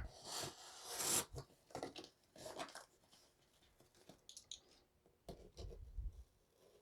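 Faint rustling and scraping of a cardboard package being opened by hand, with a few light ticks and soft bumps near the end.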